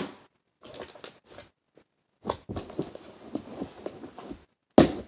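A large mixed batch of slime being kneaded and squished by hand, giving a run of irregular soft clicks and crackles, with a sharp louder noise near the end.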